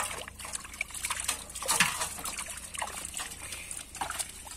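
Shallow water splashing and sloshing in irregular bursts as hands sort through live prawns and fish flipping about in a gathered fishing net.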